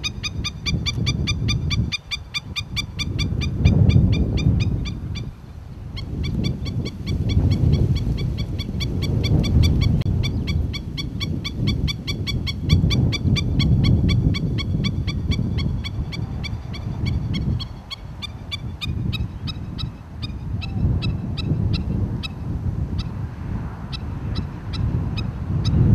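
Hawaiian stilt (ae'o) giving a long run of sharp, rapidly repeated calls, several a second, which thin out into scattered calls after about eighteen seconds. Heavy wind noise rumbles on the microphone underneath, rising and falling in gusts.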